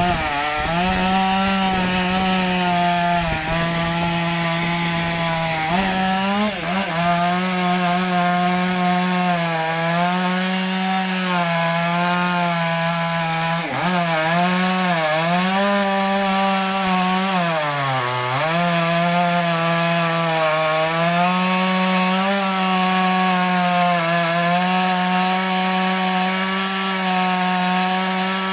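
Stihl MS 661 C two-stroke chainsaw running at high revs while cutting through logs. Its engine pitch sags several times as the chain bites into the wood and climbs back between cuts.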